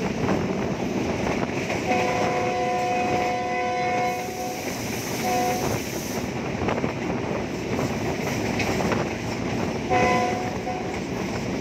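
Train running noise heard from aboard a moving passenger train, as the leading GE U20-type diesel locomotive sounds its horn in a two-note chord. There is one long blast about two seconds in and a short one soon after, then two short blasts near the end.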